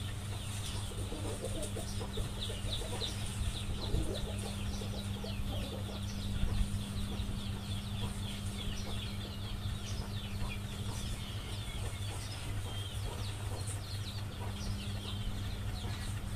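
Birds chirping: many short, high chirps, each falling in pitch, repeated throughout, over a steady low hum.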